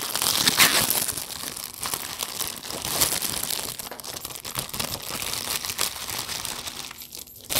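Clear plastic bag crinkling as hands open it and pull out packets of diamond painting drills. The crackle runs on, loudest in the first second and again about three seconds in.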